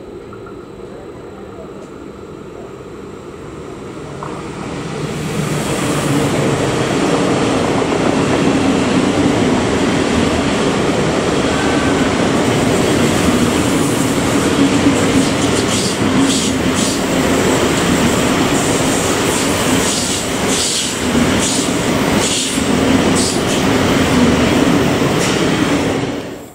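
ICE high-speed electric train approaching and running past at close range: a steady rush and hum that grows louder from about four seconds in. In the second half there is a run of clicks as the wheels cross rail joints. The sound cuts off just before the end.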